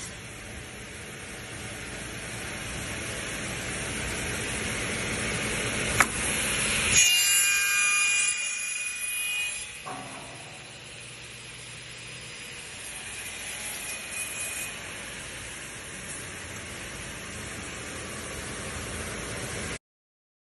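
CTD N80 double miter saw running, a steady machine noise with hiss. There is a sharp click about six seconds in, then a louder stretch with a high ringing whine for about three seconds. After that it settles back to steadier running until the sound cuts off suddenly near the end.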